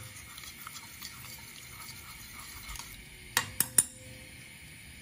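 A metal spoon stirring liquid in a stainless steel saucepan, scraping lightly against the pan. About three and a half seconds in, the spoon knocks sharply against the pan three times in quick succession, ringing briefly.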